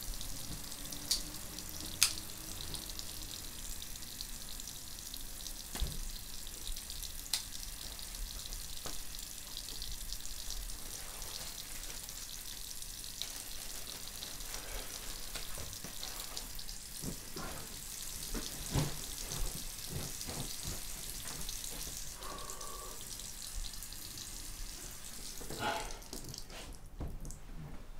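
Bathroom sink faucet running steadily into the basin, with a few sharp clicks and knocks of things handled at the sink. The running water stops near the end.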